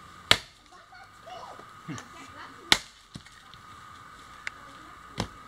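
Axe chopping into wood: two sharp strikes about two and a half seconds apart, followed by a few lighter knocks.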